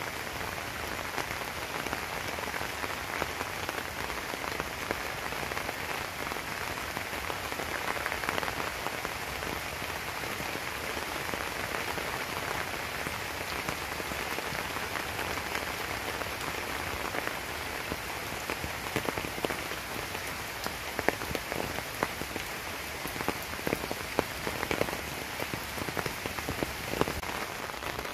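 Steady rain falling, a dense even hiss with individual drops ticking close by. The close drips grow more frequent and louder from about two-thirds of the way in.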